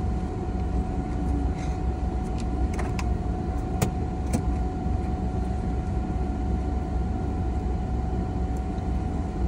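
Steady low car engine and road rumble heard from inside the cabin, with a faint steady tone above it and a few light clicks or taps about three to four and a half seconds in.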